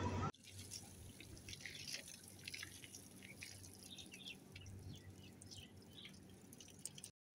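Water from a hose splashing and dripping faintly off an Asian elephant being washed, in many small irregular drops.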